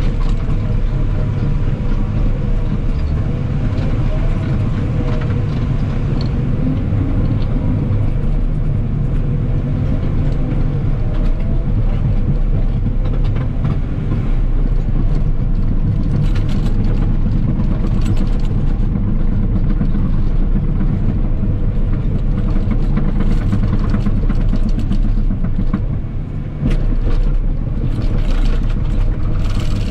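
Cat 963K track loader's diesel engine running steadily under work, with scattered clanks and rattles in the second half and a brief dip in level near the end.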